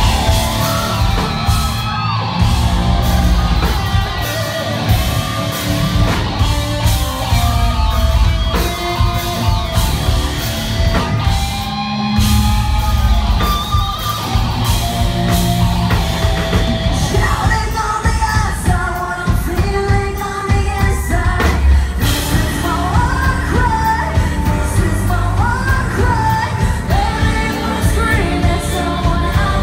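Live rock band playing: a woman's lead vocal sung over electric guitars, bass guitar and a pounding drum kit.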